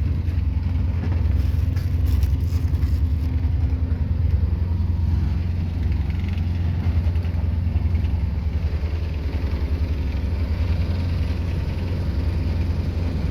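Sailing yacht's inboard engine running steadily: a low, evenly pulsing drone.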